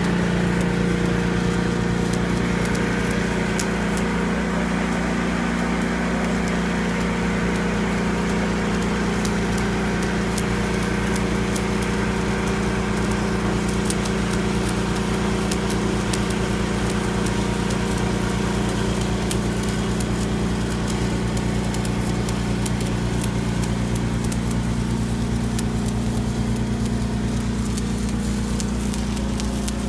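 Engine of a mobile welding rig running steadily, with a light, irregular crackle over its hum.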